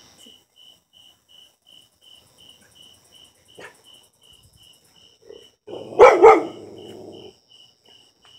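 A dog barks twice in quick succession about six seconds in, loud, after a fainter bark a little past three and a half seconds. Under it, crickets chirp in a steady pulse about three times a second.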